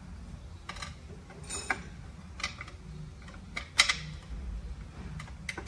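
Metal transmission parts clicking and clinking as an 8-speed automatic transmission is worked on by hand: about ten irregular sharp clicks and light knocks, the loudest a little before four seconds in, over a steady low hum.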